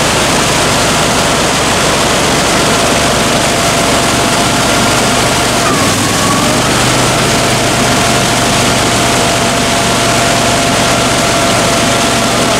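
Argo amphibious ATV running hard while stuck in deep mud, its wheels churning. The engine drones with a steady whine that dips in pitch about halfway through, then picks back up.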